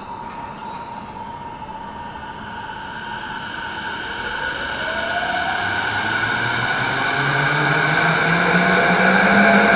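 Electric commuter train pulling away and gathering speed, its traction motors whining in several tones that climb steadily from about halfway through as it gets louder.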